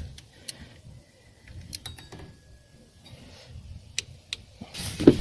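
A few scattered light clicks and taps of tools and parts being handled during engine work, with a short rustle near the end.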